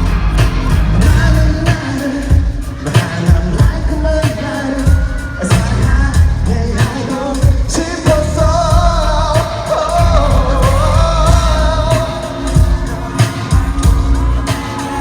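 Pop-rock song: a singer's voice over a band with heavy drums and bass. The singing comes out most strongly in the second half.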